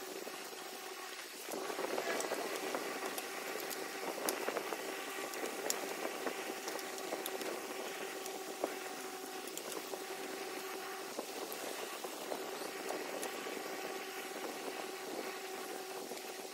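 Cardboard pieces being handled on a desk: rustling and scattered light clicks over a steady hum. The rustling grows louder about a second and a half in.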